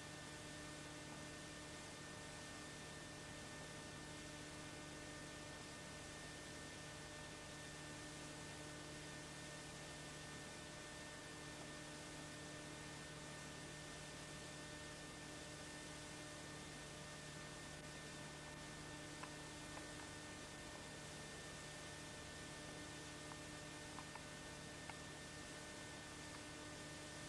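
Steady electrical hum under an even hiss, with a few faint clicks in the last third: the background noise of an old home-video recording.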